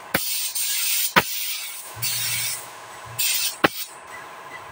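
Gravity-feed paint spray gun spraying top coat in three short hissing bursts, with sharp clicks at the start of the first burst and at the end of the first and last bursts.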